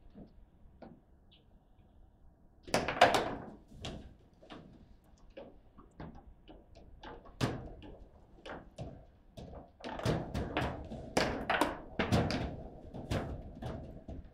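Table football in play: the ball, plastic figures and steel rods clacking and knocking in a rapid, uneven series of sharp hits. The hardest flurry comes about three seconds in, with a busy run of knocks in the second half.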